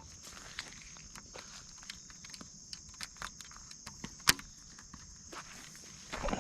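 A steady high-pitched insect chorus with scattered small clicks and taps, and one sharp click about four seconds in.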